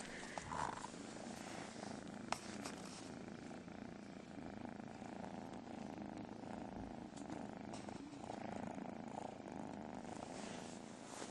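A cat purring steadily, with a single sharp click about two seconds in.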